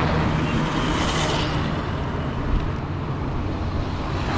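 Road traffic passing close by: a vehicle goes past about a second in, over a steady low rumble of traffic noise.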